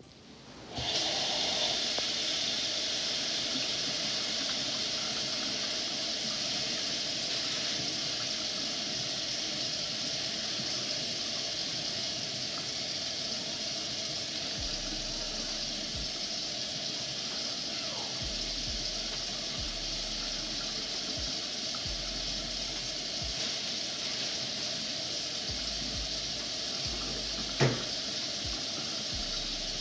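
Water running steadily; it comes on suddenly about a second in. A single sharp knock sounds over it near the end.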